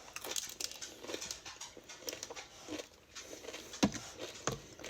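Faint chewing and mouth sounds from someone biting into a frozen fruit roll-up rolled around ice cream, with a couple of sharp clicks near the end.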